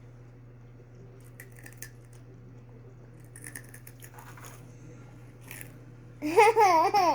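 Faint crunchy bites and chewing of snack food, a few soft crunches spread through the quiet. Near the end, a child's high voice rises and falls for about a second.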